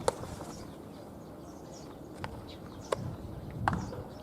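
A sharp knock about a tenth of a second in, then three fainter short clicks, over steady open-air background noise.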